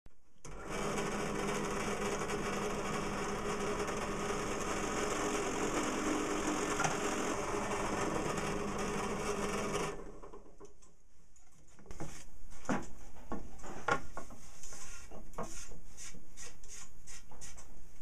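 A small motor-driven tool runs steadily for about ten seconds and stops. After a short pause come irregular clicks and knocks of parts being handled and fitted.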